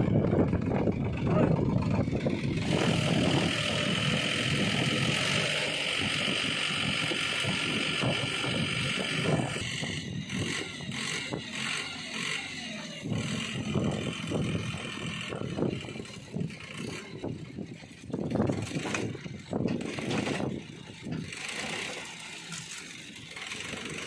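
Sonalika DI 740 III tractor engine running steadily for about the first ten seconds, then fading down; after that, loose soil pours and tumbles off the raised bed of a tipping trailer in uneven bursts.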